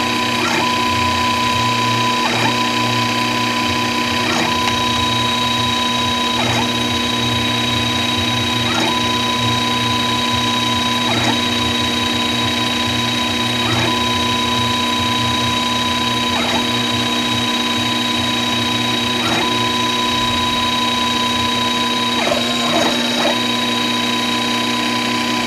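Sherline 5400 CNC mill machining: a steady whine from the spindle and stepper motors as the end mill cuts, the pitch breaking briefly about every two to two and a half seconds.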